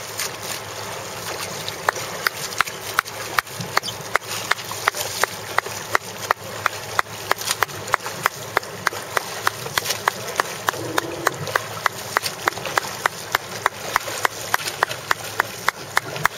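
Steady rush of a support boat under way on open sea, water and wind, with a sharp regular click about three times a second starting about two seconds in.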